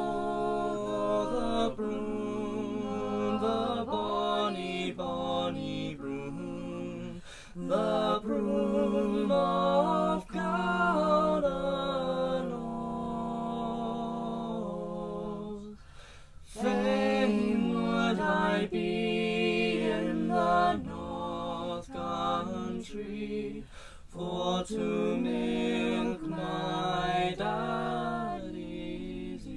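Unaccompanied voices singing a traditional Scottish folk ballad, phrase after phrase, with short breaks between lines.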